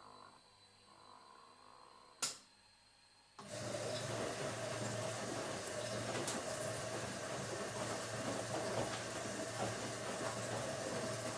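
Washing machine: a single sharp click about two seconds in, then about three and a half seconds in a steady rushing of water with a low hum starts abruptly and runs on, the machine's water inlet opening as it begins to fill.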